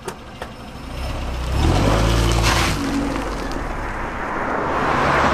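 Motor vehicles passing close by on a road. One goes by loudly about two seconds in, with a steady low engine hum under the tyre noise, and another approaches and swells near the end.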